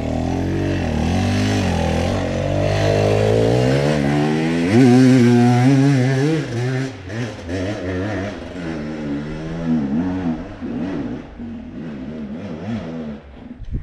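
Dirt bike engine revving hard on a steep uphill climb, its pitch rising and falling with the throttle. It is loudest about five seconds in, then fades as the bike climbs farther away.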